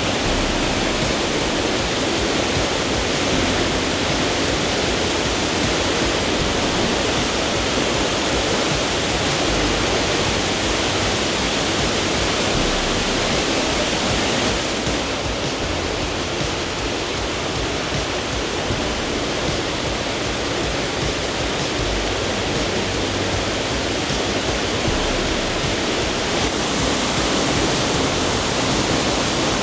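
Waterfall pouring close by: a loud, steady rush of falling water. The higher part of the rush thins slightly about halfway through.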